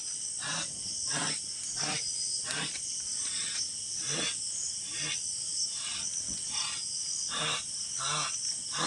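Crickets chirping steadily, with a person's short vocal sounds repeating roughly every 0.7 seconds.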